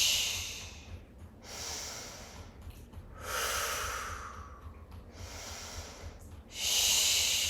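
A woman breathing in through the nose and out in long breathy exhalations, alternating a soft "whoo" with a "shh": the water and wood sounds of a qigong-style breathing exercise. A "shh" fades at the start, a lower "whoo" comes about three seconds in, and another "shh" follows near the end, with quieter nose inhales between.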